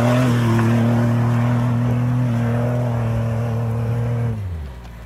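Jeep Wrangler engine running hard at steady revs under load, climbing a steep dirt slope. Its pitch drops slightly a little past two seconds in, and the sound fades away near the end.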